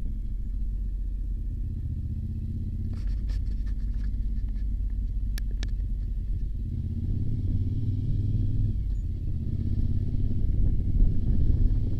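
A vehicle on the move: a steady low rumble of engine and road, with a few sharp clicks about three to six seconds in, and the rumble growing louder in the second half.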